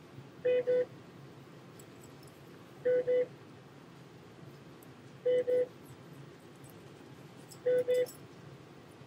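An electronic beeper sounding a double beep about every two and a half seconds, four times, with a few faint clicks of handling in between.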